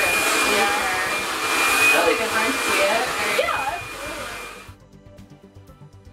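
Handheld hair dryer blowing, a loud steady rush with a thin whine in it. It falls away about three-quarters of the way through, leaving quiet background music.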